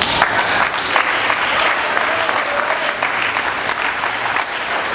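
A crowd applauding: dense clapping that breaks out suddenly.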